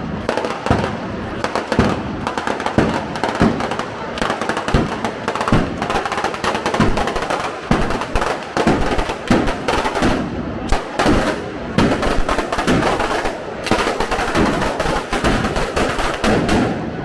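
A long, dense string of firecrackers going off in rapid, irregular succession, sharp bangs mixed with lower thumps, with band music underneath.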